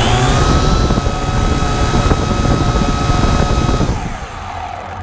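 Syma X8W quadcopter's motors and propellers whining at speed, a steady high-pitched buzz with a noisy low rumble, which drops in pitch and level about four seconds in.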